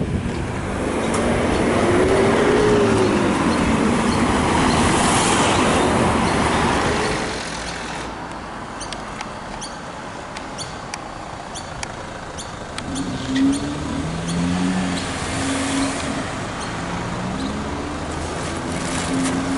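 Road traffic at a level crossing while the boom gates are up. A heavy vehicle drives past loudly in the first seven seconds, its engine pitch rising and falling. After that the traffic is quieter, with engines pulling away near the end.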